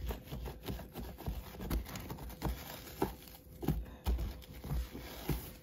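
Hands fitting a curtain onto a cat shelter box: irregular light knocks and thumps with rubbing and handling noise.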